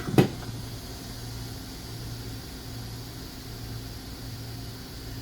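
Steady fan hiss and a wavering low hum from micro-soldering bench equipment, with one sharp knock just after the start.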